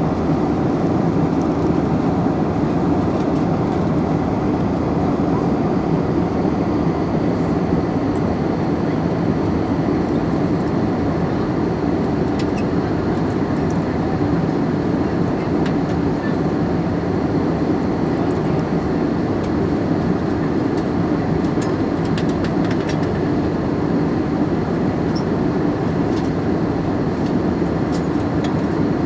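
Steady cabin noise of an Airbus A321 in cruise, heard inside the cabin by a window seat: a deep, even rush of engine and airflow, with a few faint ticks late on.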